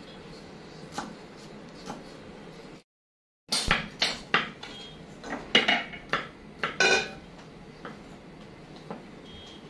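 A few light knife knocks on a wooden cutting board, then, after a brief gap of silence, a quick run of metal clanks and clinks with a short ringing: a cooking pot and its lid being handled and set down on a gas stove.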